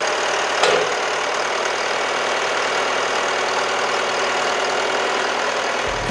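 Backhoe diesel engine running steadily as its boom lifts a trebuchet's counterweight to cock the arm, with one short knock about half a second in.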